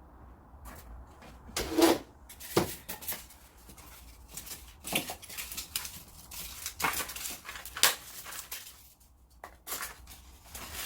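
Irregular handling noises from hands-on work with wood and materials: a dozen or so scattered short knocks and scrapes, the sharpest about two seconds in.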